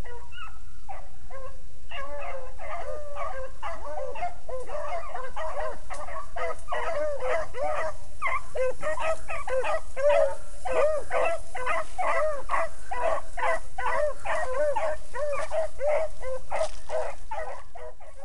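Pack of beagles baying on a rabbit's scent line, many voices overlapping: a few scattered calls at first, then a steady chorus from about two seconds in that breaks off near the end. The pack is running the rabbit's track.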